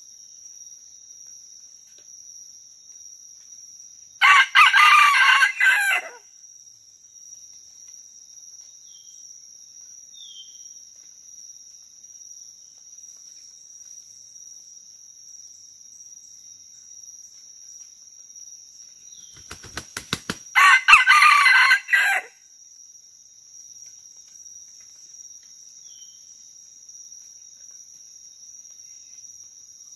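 A red junglefowl rooster crows twice, about 4 seconds in and again about 21 seconds in, each crow lasting about two seconds. A quick run of sharp claps comes just before the second crow. A steady high insect trill runs underneath.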